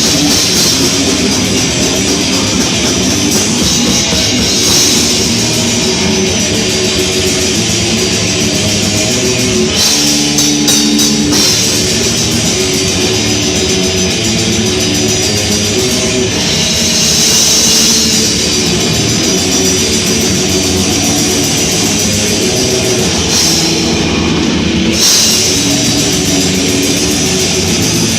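Heavy metal band playing live: distorted electric guitar, bass and drum kit, loud and continuous, with cymbals cutting out briefly near the end.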